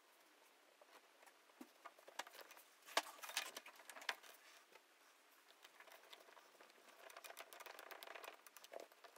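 Faint clicks and rattles of hands refitting a wheel on an RC crawler's axle, with one sharper click about three seconds in. Near the end comes a run of quick light ticks as the wheel nut is spun on with a nut driver.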